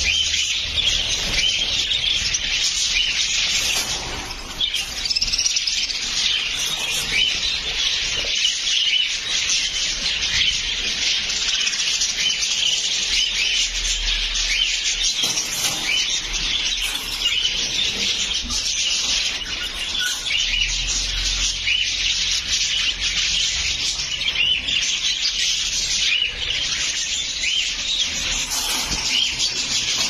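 Many caged budgerigars chirping and chattering together: a dense, unbroken chatter of overlapping high chirps.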